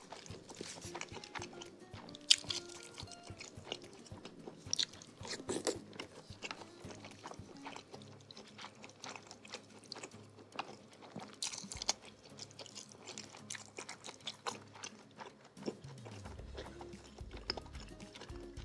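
Close-up mouth sounds of someone eating seblak: chewing and biting, heard as many small irregular clicks. Soft background music plays underneath.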